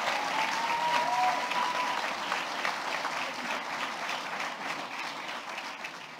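Audience applauding, the clapping slowly dying away over the last few seconds.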